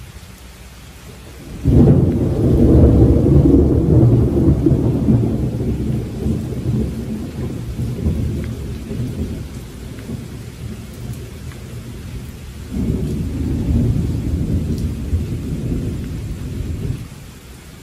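Steady rain with a loud roll of thunder that breaks in suddenly about two seconds in and fades slowly over several seconds. A second, softer rumble follows near the end.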